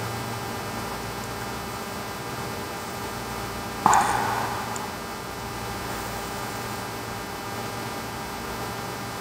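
Steady low electrical hum from workbench equipment, with one sharp click about four seconds in followed by a short noise that fades within about a second.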